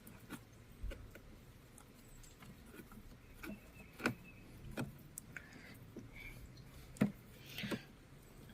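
A few scattered light clicks and knocks of small parts and tools being handled, with a brief rustle near the end.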